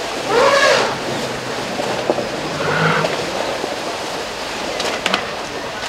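Asian elephants splashing as they wade quickly through a shallow river, water churning steadily around their legs. A short loud call rises and falls about half a second in, and a fainter one comes near three seconds.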